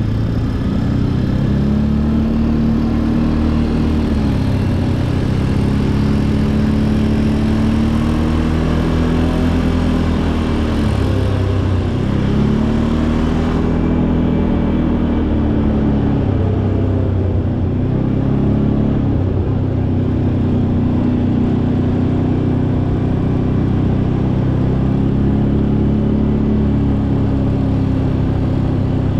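ATV engine running under way, its pitch rising and falling again and again as the throttle is opened and eased.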